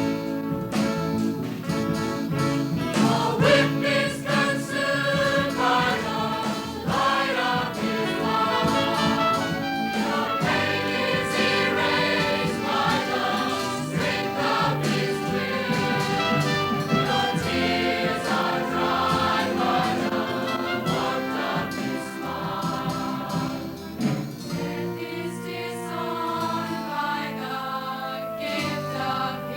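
A choir singing a gospel song with instrumental accompaniment.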